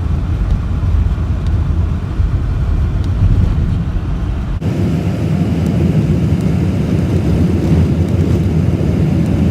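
Steady rumble of a car driving: engine and road noise, whose character changes abruptly about halfway through.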